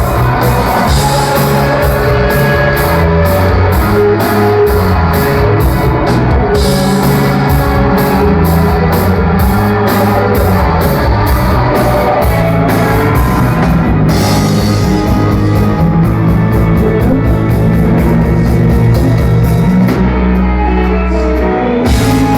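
Live rock band playing loud: drums with regular cymbal strokes, bass and guitar. Near the end the cymbals drop out and a heavy low bass note is held for about two seconds before the drums come back.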